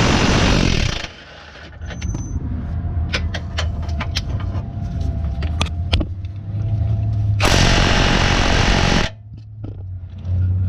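Impact wrench hammering on a motor-mount bolt in bursts: one ends about a second in, a second runs for about a second and a half past the middle, and a third starts near the end, with light clicks between. The bolt is on tight and does not break loose.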